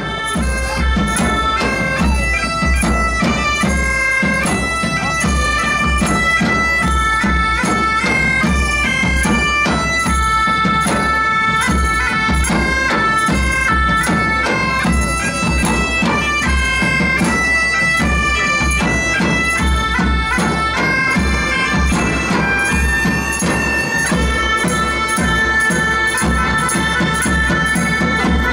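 Bagpipes playing a quick folk melody in stepping notes, over a steady beat on large drums, performed live.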